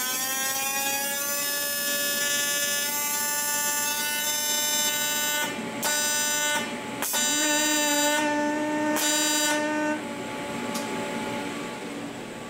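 AC TIG welding arc on a Miller inverter welder buzzing with a hiss, its pitch rising as the AC frequency is turned up by hand, then holding steady at a high buzz that the welder puts at about 300 hertz. The arc breaks off briefly twice and stops about ten seconds in.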